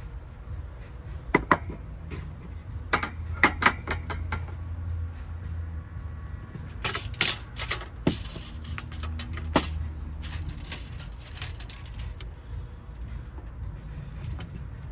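Handling noise: scattered sharp clicks and knocks with short rattling stretches, as small tools and metal parts are picked up and moved, over a steady low hum.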